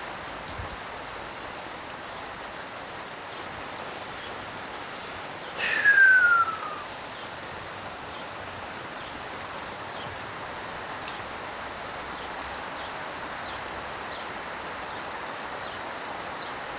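Steady hiss of heavy rain falling. About six seconds in, a single loud whistle falls in pitch over about a second.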